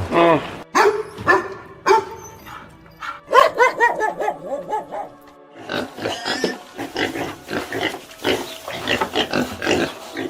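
Farm animal calling repeatedly: many short, pitched cries in quick runs, becoming denser and noisier in the second half, over background music.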